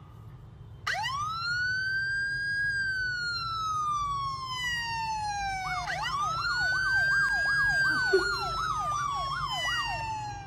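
Police-style siren sound played from a smartphone: one long wail rising quickly and then falling slowly, then a second wail with a fast warbling yelp of about two to three cycles a second laid over it.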